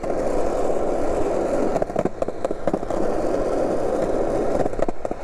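Skateboard wheels rolling steadily over asphalt, a continuous rumble with scattered clicks as they cross rough patches, about two seconds in and again near the end.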